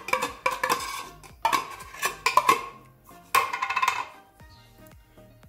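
Metal spoon scraping and clinking inside a nearly empty tin of clarified butter and knocking against a nonstick frying pan, in quick clusters of strokes for about four seconds. Faint background music with steady tones is left after that.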